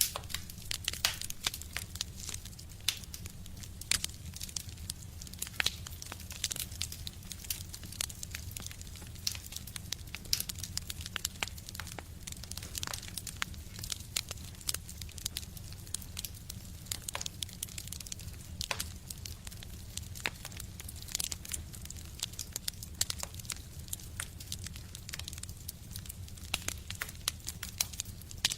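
Fire crackling in a stove: a continuous, irregular run of sharp pops and snaps over a low steady rumble.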